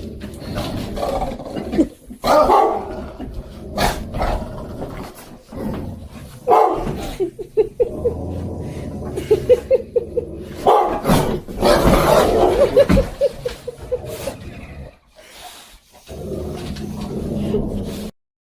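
Dogs barking in repeated bursts, with several quick runs of short, rapid pulses between louder barks.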